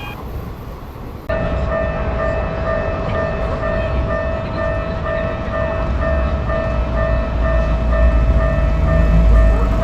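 Railroad crossing alarm ringing with a steady, evenly repeating tone that starts suddenly about a second in. A train's low rumble builds beneath it toward the end.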